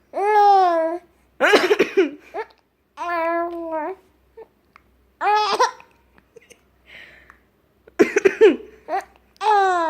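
A three-month-old baby cooing and squealing in short high-pitched calls, laughing, between a woman's coughs, which come about 1.5 seconds in and again about 8 seconds in.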